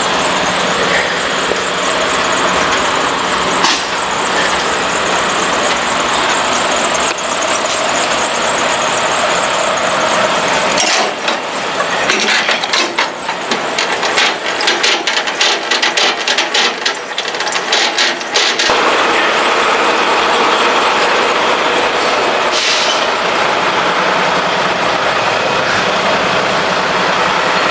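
Semi truck's diesel engine running under a loud, steady hiss. About eleven seconds in, a run of rapid clicks and rattles lasts for roughly seven seconds, then the steady hiss and engine carry on.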